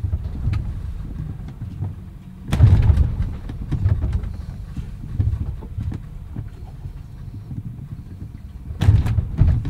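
Hull of a yacht beached with its keel stuck in the sand, shuddering and jolting as wind and waves strike it, heard from inside the cabin. A constant low rumble, with heavy thuds about two and a half seconds in and again near the end.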